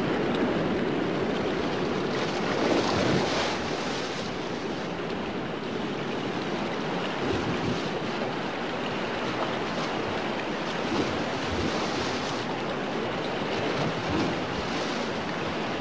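A steady rushing wash of noise, like surf, swelling briefly about three seconds in.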